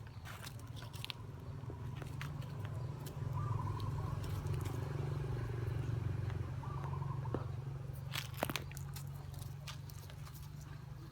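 Dogs scuffling and biting at each other, with scattered sharp clicks and snaps over a steady low rumble that swells in the middle.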